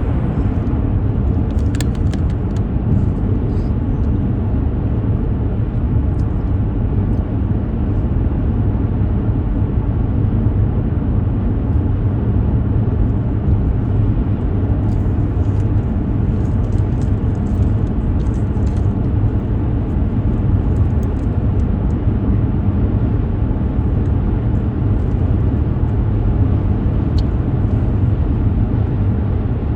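Steady road and engine noise heard inside a moving car's cabin: a constant low rumble that neither rises nor falls.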